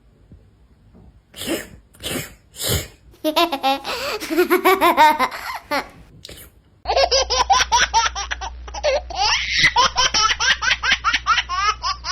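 Three short sharp bursts, then a spell of laughter; after a cut, a longer run of rapid, high-pitched laughter over a low hum.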